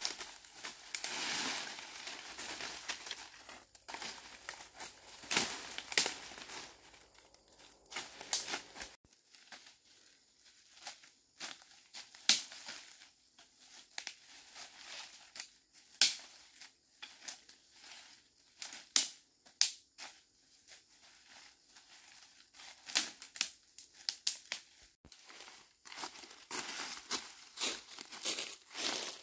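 Irregular crinkling and crackling, with many sharp snaps scattered through.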